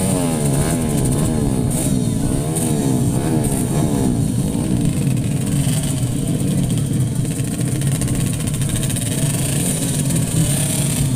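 A pack of modified underbone (bebek) racing motorcycles revving on the starting grid, throttles blipped up and down again and again over a steady engine drone as the riders wait for the start.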